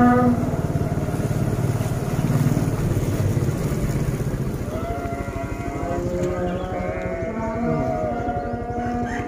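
Small motorcycle engine running steadily as the bike rides along a lane. A wavering pitched sound joins it about halfway through.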